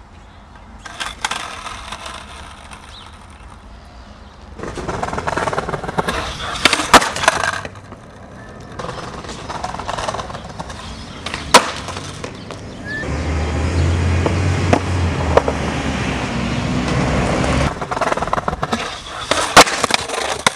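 Skateboard wheels rolling on asphalt and concrete, with sharp cracks of the board being popped and slapping down over several attempts. Near the end comes a loud clatter as the board shoots away and the skater falls. A low steady hum runs for several seconds in the middle.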